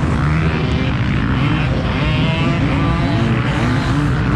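KTM 125 SX single-cylinder two-stroke engine running loud, its revs rising and falling repeatedly.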